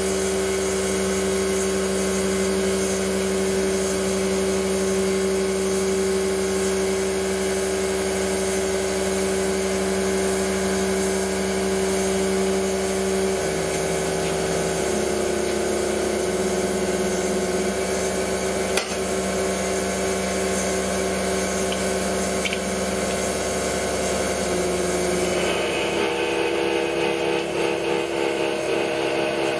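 A CNC-converted Sieg X2 mini mill machining a pocket. Its motors give a steady whine whose pitch steps to new notes about halfway through and again near the end as the tool changes moves. There is one sharp click in the middle.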